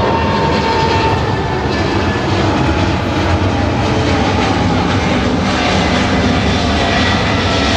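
Jet engines of a China Cargo freighter flying past, a loud steady noise with a faint high whine running through it.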